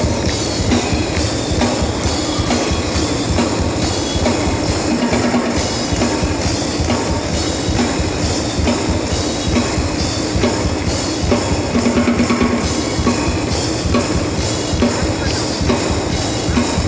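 Drum kit played live and amplified, a busy, steady beat that runs without a break.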